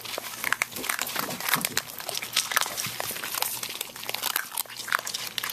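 Puppies crunching dry kibble from a bowl: a quick, irregular run of small crunching clicks.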